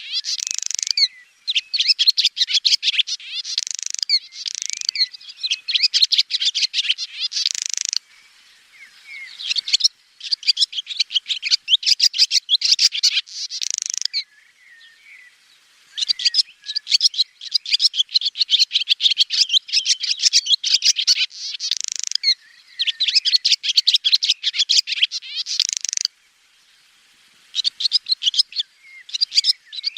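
Swallow singing a rapid, high twittering song in bouts of several seconds, each broken by a short pause before the next bout starts.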